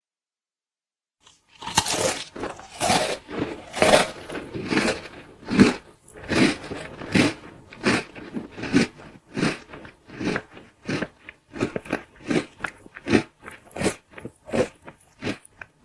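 A person munching food noisily, chewing with the mouth. It starts about a second and a half in with a dense flurry of chews, then settles into a steady rhythm of about two chews a second.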